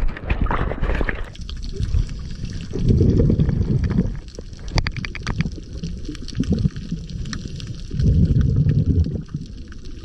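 Underwater recording: water rushing against the camera for about the first second, then a scuba diver's exhaled bubbles burbling twice, about five seconds apart, over a steady hiss with small crackles.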